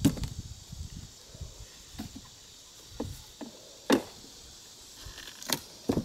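Wooden beehive frames being knocked and pried loose with a metal hive tool, the frames stuck fast with propolis: a series of sharp wooden clicks and knocks, the loudest about four seconds in.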